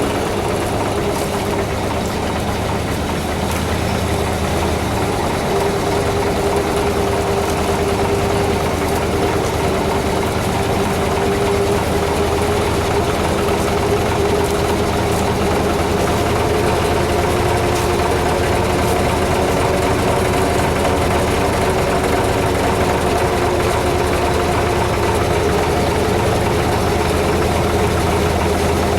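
Vehicle engine running steadily at low speed, its pitch shifting slightly a few seconds in and then holding.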